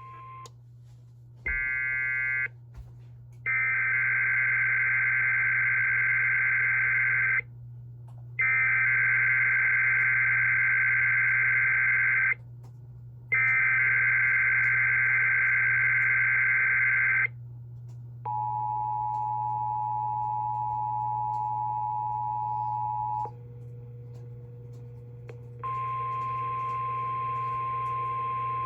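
Emergency Alert System Required Weekly Test tones over weather radio. After a short beep, there are three SAME data-header bursts of about four seconds each, a second apart. Then comes the two-tone EAS attention signal, held for about five seconds, and after a lull a single steady alert tone starts near the end.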